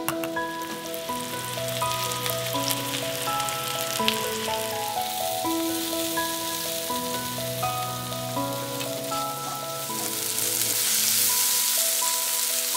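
Diced onions frying in oil in a nonstick wok, a steady sizzle that grows louder near the end. Background music of a gentle melody plays over it.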